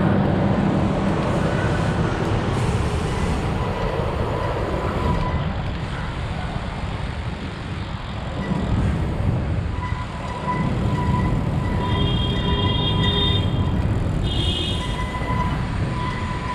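Steady rushing noise of a BMX bike being ridden, with its newly fitted brakes squealing: a thin steady whine in the second half and short, higher squeals twice near the end.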